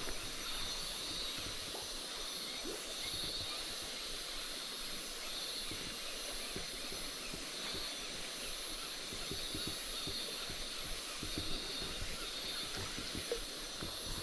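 Tropical forest ambience: a steady high insect drone, with an insect chorus swelling and fading about every two seconds. Faint low knocks are scattered through it.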